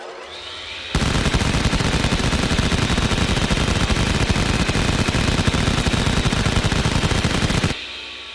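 Machine gun firing one long continuous burst at a very fast, even rate for nearly seven seconds. A rising whine leads into it, and when the firing cuts off a whine fades away.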